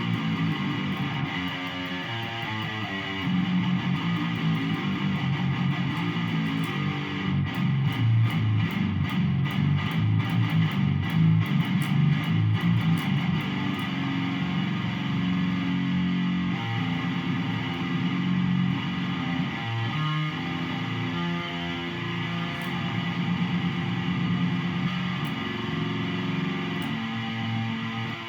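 Electric guitar tuned down to drop F#, playing low riffs. From about a quarter of the way in to near the middle comes a run of fast repeated picking on the low strings.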